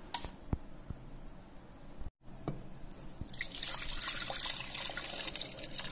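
A few soft taps of a spoon stirring soup mixture in a steel bowl, then, after a brief dropout, creamy mushroom soup bubbling at a boil in a pot, a steady fizzing hiss that sets in a little past halfway.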